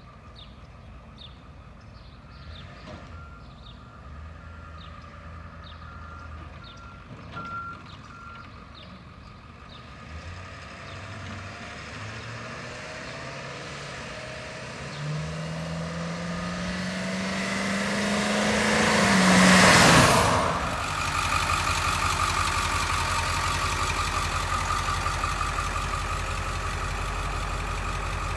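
Ford F550 Super Duty flatbed's 7.3L Powerstroke diesel approaching and driving past, its engine note climbing as it accelerates, loudest and dropping in pitch as it passes about 20 seconds in. After a sudden change, the diesel idles steadily.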